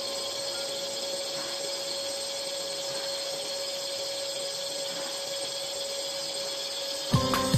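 CNC lathe running: a steady mechanical whir with a constant high hum. Music with sharp beats starts near the end.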